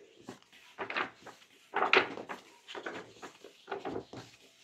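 Pages of a thick paperback textbook being flipped quickly by hand: a rapid run of papery swishes and flutters, loudest about two seconds in.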